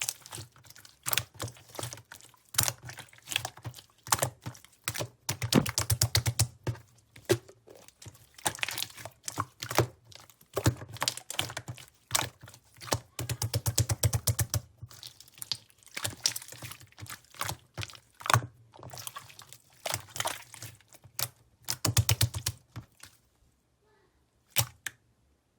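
Opaque yogurt-textured slime being squeezed and pressed by hand, making sticky clicking and popping sounds in quick runs with short pauses, falling almost silent near the end apart from a couple of pops.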